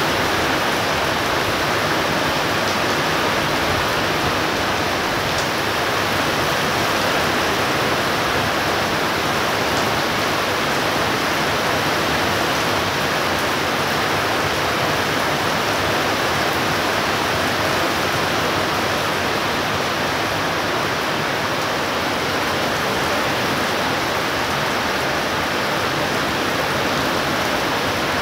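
Intense downpour in a thunderstorm: heavy rain falling in a steady, even hiss.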